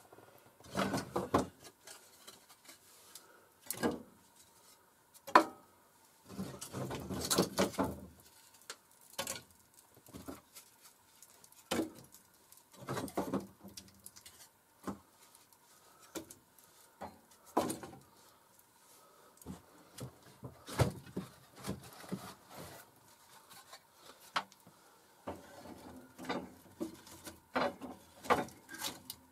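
Firewood and kindling being handled and laid into a small metal wood stove. Irregular sharp wooden knocks and clunks, several of them single, between longer stretches of rustling and scraping.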